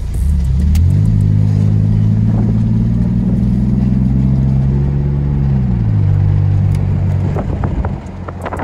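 Dodge Durango's swapped-in V6 engine pulling the truck away, heard from inside the cabin: the revs climb in the first second, hold steady for several seconds, then drop about six seconds in and settle lower.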